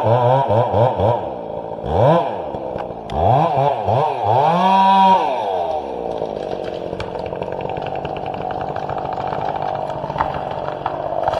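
Chainsaw engine revved in quick throttle blips, rising and falling several times, held at high revs briefly about four seconds in, then running on more steadily and quieter.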